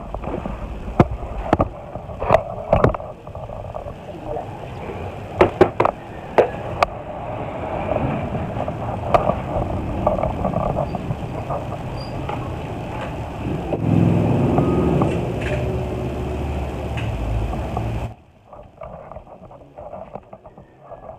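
Hands mixing and crumbling garden soil in a plastic drawer, with sharp knocks and clicks against the plastic during the first several seconds. A low rumble swells about two-thirds of the way in, and the sound drops away suddenly near the end.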